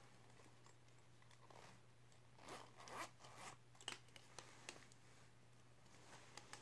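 Faint unzipping of a zip-around Loungefly wallet: a few short rasps of the zipper being run open, followed by a handful of light clicks from handling.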